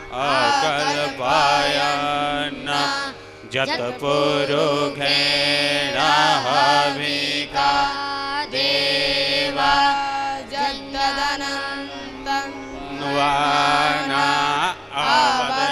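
Indian devotional music: a winding, ornamented melody over a steady drone.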